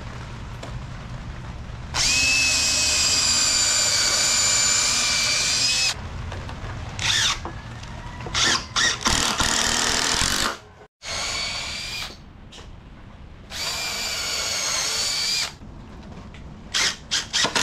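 Power drill running in several bursts: one steady whine of about four seconds, then a few shorter runs with pauses between.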